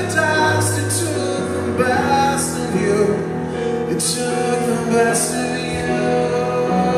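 Male lead singer singing live into a handheld microphone with a rock band, over sustained bass notes.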